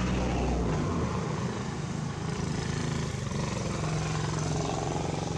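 A motor engine running steadily, its low hum shifting slightly in pitch.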